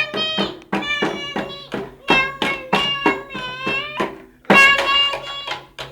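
Upbeat music with a high pitched melody in short notes, about three a second, each with a sharp drum-like hit, over a steady low tone.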